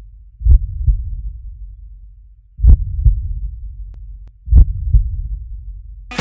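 Heartbeat sound effect: three slow, deep double thumps (lub-dub) about two seconds apart, each pair fading out in a low tail.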